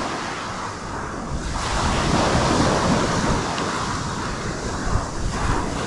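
Ocean surf breaking and washing up the beach, with wind buffeting the microphone; the surf swells a little about two seconds in.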